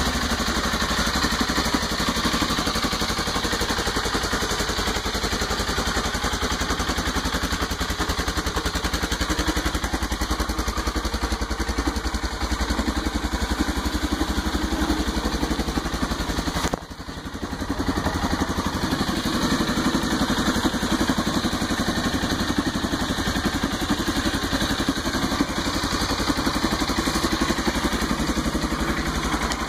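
Quad bike engine idling steadily at close range, with an even, rapid firing pulse. The sound drops out briefly about seventeen seconds in, then resumes.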